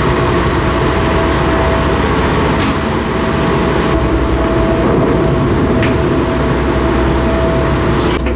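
A car ferry's engines running: a steady low drone with a constant hum over it.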